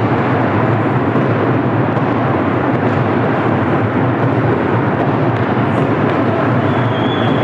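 Steady loud din of an ice hockey arena crowd during play. A high steady tone starts near the end.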